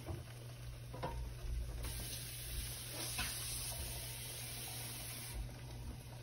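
Chicken in masala sizzling faintly in a covered kadai, cooking with no water added, as an even hiss with a couple of light ticks.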